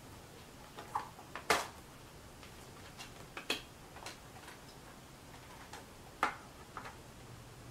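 A few light clicks and knocks at irregular intervals, the loudest about one and a half seconds in, over a faint low hum.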